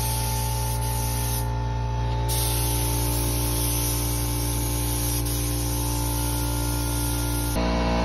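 Compressed-air gravity-feed spray gun hissing as it sprays paint, over a steady electric motor hum. The spray hiss stops for under a second about one and a half seconds in, then resumes.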